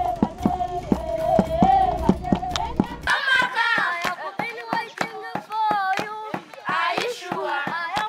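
A group of women and children singing together with steady rhythmic hand clapping, a little over two claps a second. About three seconds in, a low rumble drops out and the higher voices come through more clearly.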